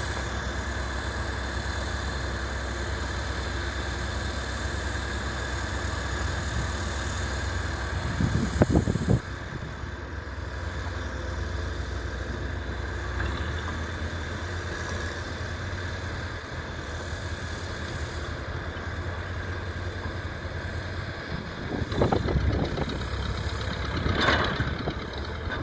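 Diesel engines of a hydraulic excavator and small crawler bulldozers running with a steady low drone, as the excavator works to free the bulldozers bogged down in mud. The engines surge louder twice, about eight seconds in and again near the end.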